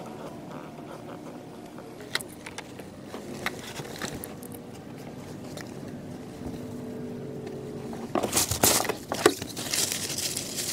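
Cloth rustling as t-shirts and towels are pulled off ceiling pins and folded, with a few light clicks; the rustling is loudest near the end.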